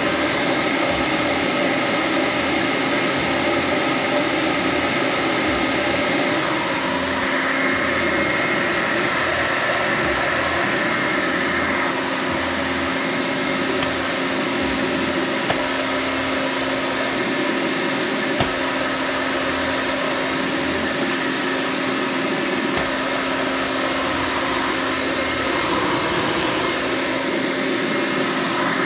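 Electric blower running steadily, pushing air through a venturi air amplifier: a constant motor whine with several tones over rushing air.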